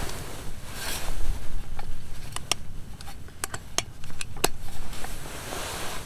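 Hot sandwich maker being handled and closed on a metal camp table: soft rustling, then a quick series of sharp clicks and taps in the middle, over a steady low wind rumble.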